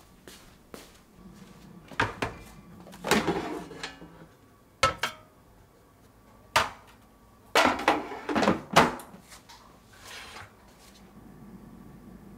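Ceramic yogurt pots with lids and an air fryer basket being handled. There is a series of sharp knocks and clinks in several clusters as the pots are set down and loaded into the basket, with the loudest clacks about eight to nine seconds in.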